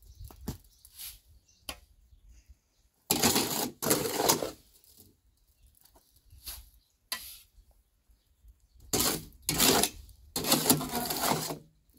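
Steel shovel scraping and scooping cement mix in a metal wheelbarrow: four long scrapes, a pair about three seconds in and a pair near the end, with light knocks between.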